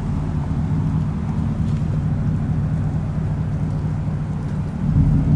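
Steady low mechanical hum of a running motor or engine.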